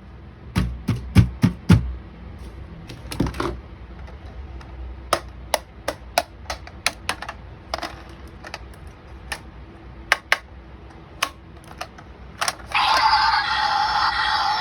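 Irregular sharp clicks and knocks of hard plastic toys and packaging being handled. Near the end a loud, steady electronic buzzing tone starts suddenly and keeps going, typical of a battery toy being switched on.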